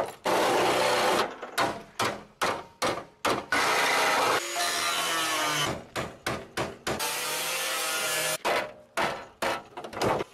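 Reciprocating saw (sawzall) cutting through a van's sheet-metal body, run in many short bursts and a few longer runs of a second or more, its motor pitch rising and falling as it works.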